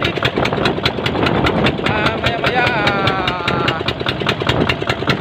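Small fishing boat's engine running steadily, its firing strokes a rapid, even chugging, over the rush of wind and water.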